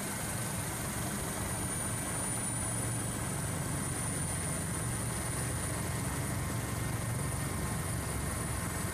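Steady low drone of a helicopter's engine and rotor, heard from aboard the aircraft, with no change or blast through it.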